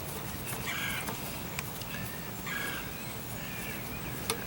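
A bird calls twice, briefly, about a second in and again about two and a half seconds in, over a steady low background noise, with a few faint clicks.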